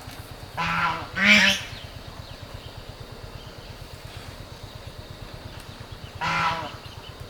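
Geese honking: three short calls, two close together about a second in, the second one loudest, and one more near the end.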